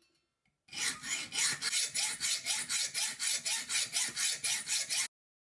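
Hacksaw cutting a notch into the tip of a slotted screwdriver bit: quick, even rasping strokes, about four a second, starting just under a second in and stopping abruptly near the end.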